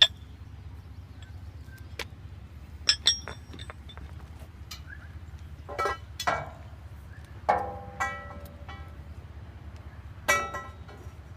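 Sharp metal-on-metal strikes and clinks around the sawmill's band wheel pillow block, about nine in all with some in quick pairs, several ringing briefly. These are the small taps and steel contacts of nudging the pillow block into square.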